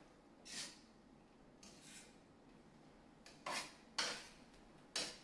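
Kitchen tongs scraping and clattering against a skillet as pasta is tossed in sauce: a few short strokes, three louder ones close together in the second half.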